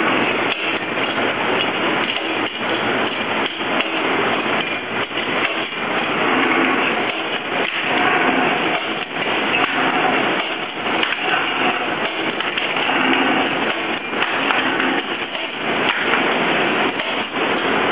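Vertical straightening machine (no vibratory bowl feeder) running, a dense, continuous clatter of rapid knocks with no let-up.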